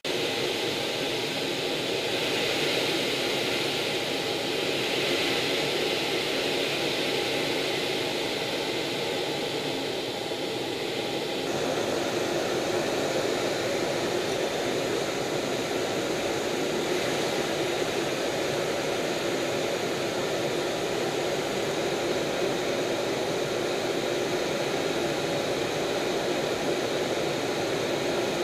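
Steady jet engine and rushing-air noise inside a jet aircraft's cockpit in flight. The tone of the noise shifts abruptly about eleven seconds in.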